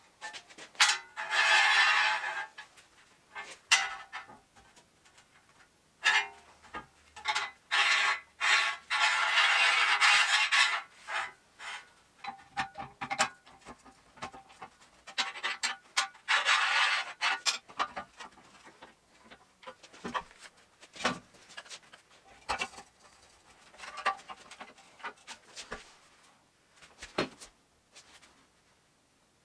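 Steel tube and flat bar scraping and sliding on a steel welding table as they are worked into position, in several drawn-out bursts. Between the bursts come sharp metallic clicks and knocks as pieces are set down and clamps are fitted.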